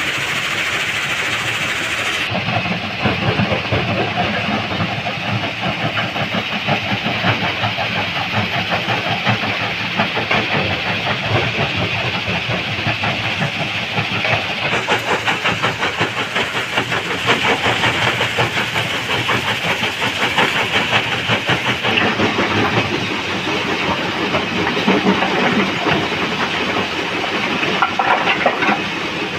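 A stone crusher running at a quarry, with a continuous dense clatter of rock being broken, over the steady sound of heavy diesel machinery.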